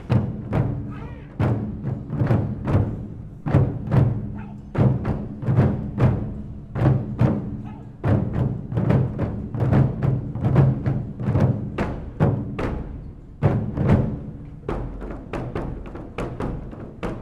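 Japanese taiko drums played together: a fast, driving rhythm of hard, deep strikes, about two to three heavy accents a second with lighter hits between, a little softer in the last few seconds.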